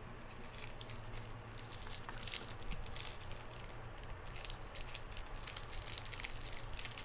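Packaging rustling and crinkling as a small boxed item is handled, with many quick light clicks and taps, over a steady low hum.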